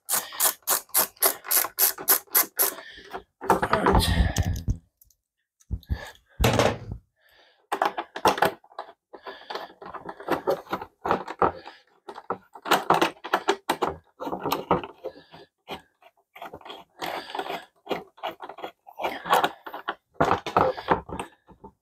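Ratchet spanner clicking rapidly, about five clicks a second, as a loosened motorcycle fairing bolt is spun out. After that come irregular knocks and clicks of the tool and the plastic fairing panel being handled.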